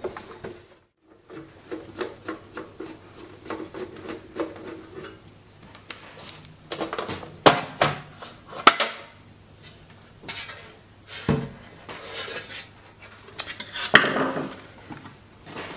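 LG BD550 Blu-ray player's sheet-metal case being handled as its lid screws are taken out and the cover slid off: a run of small clicks and scrapes, with a few sharper metallic knocks, the loudest about halfway through and near the end.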